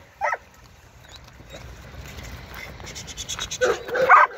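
A dog gives a short yip about a quarter second in, then a few yips and whines near the end. Between them there is a quick run of scratching.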